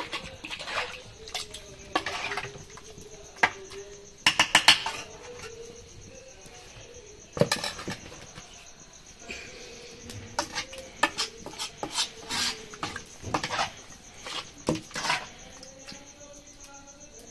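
A metal spoon clinking and scraping against a cooking pot: scattered knocks, with quick rattling runs about four seconds in and a denser stretch of knocks in the second half.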